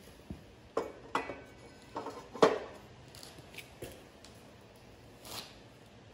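Pieces of steel stock being handled and set down on a metal chop saw's base and fence: a series of light metal clanks and knocks, the loudest about two and a half seconds in.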